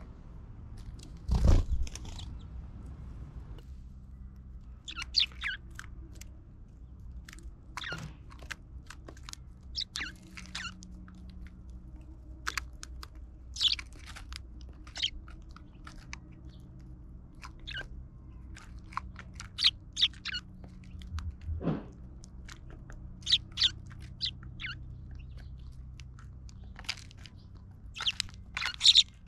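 Eurasian tree sparrows pecking and cracking seeds in a wooden feeder tray: an irregular scatter of sharp clicks and crunches. A heavy thump comes about a second and a half in, and another about twenty-two seconds in.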